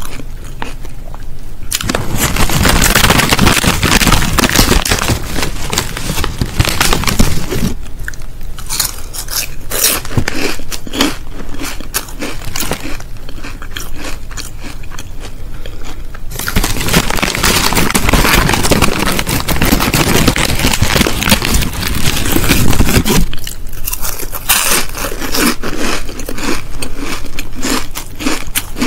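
Crisp packet crinkling in two long stretches, with sparser crisp crunching and chewing between them and near the end.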